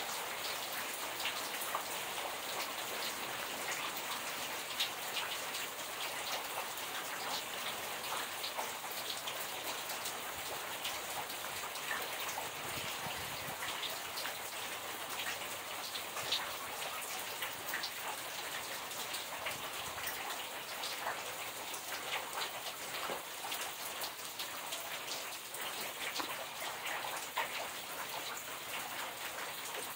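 Steady rain falling onto puddles and waterlogged ground, with many individual drops ticking close by.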